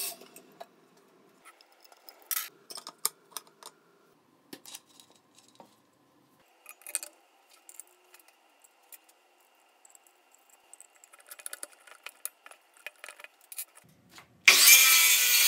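Scattered light metallic clicks and clinks, with quiet gaps between, as the blade and its flange are fitted on a DeWalt DWE575 circular saw. About a second before the end, the saw switches on suddenly and loud and runs into a wooden beam.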